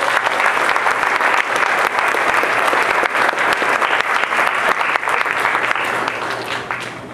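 Audience applauding, a dense spread of hand claps that dies away near the end.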